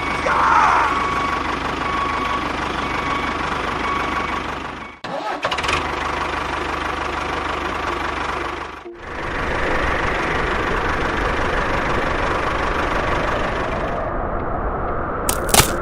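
A motor running steadily. It cuts out briefly about five seconds in and again about nine seconds in, and a couple of sharp clicks come near the end.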